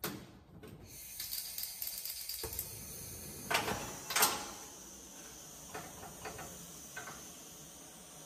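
Handheld gas torch burning with a steady hiss as it chars a wooden hammer handle, with a few clicks and two louder knocks about three and a half and four seconds in.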